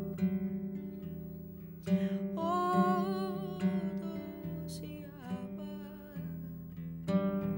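Music: acoustic guitar strumming chords, with a singing voice carrying a wavering melody.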